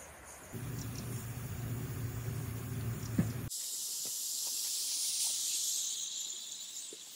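A low rumbling noise for about three seconds, then a steady high hiss of steam jetting from the lid valve of a pot cooking over a wood fire, fading near the end: pressure being let off the pot.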